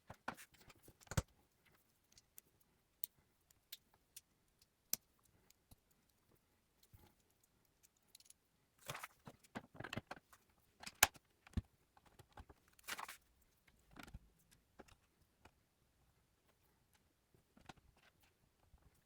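Plastic LEGO pieces clicking and rattling as they are handled and snapped together: scattered sharp clicks, with short bursts of rattling about nine seconds and thirteen seconds in.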